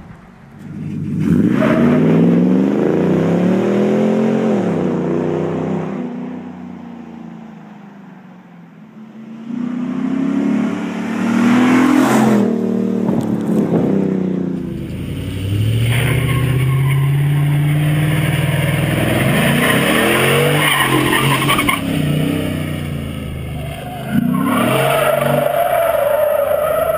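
6.2-litre V8 pickup truck engines revving and accelerating past in a run of short clips, the engine note rising and falling several times. The recording changes about halfway through.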